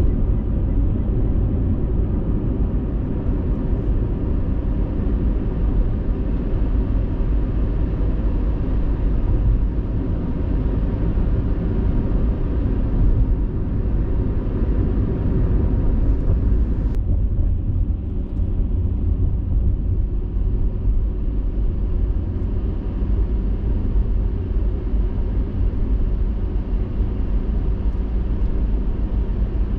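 Steady engine and road drone inside a moving car. The higher hiss thins out a little past halfway.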